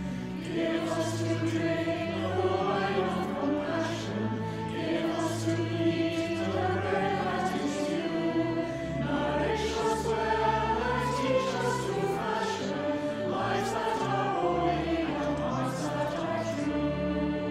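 A choir singing a hymn, with held low accompaniment notes underneath.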